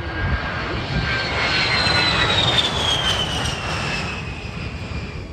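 A-10 Thunderbolt II's twin turbofan engines on a low, fast pass: a rushing jet noise with a high whine that falls steadily in pitch as the aircraft goes by. It is loudest a little past the middle.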